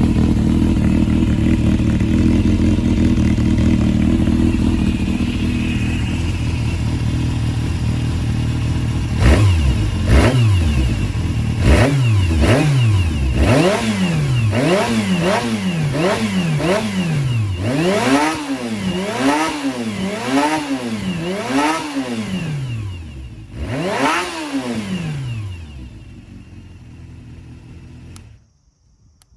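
A Honda CBR400F's air-cooled inline-four runs steadily, then is blipped through a dozen or so quick throttle revs, each rising and falling back, about one a second. It settles back to a lower idle and cuts off abruptly near the end. The engine is freshly overhauled and, per the seller, runs without abnormal noise.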